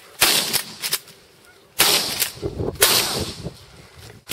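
Three shotgun shots at passing Canada geese, about a second and a half and then a second apart, each a sharp blast that trails off.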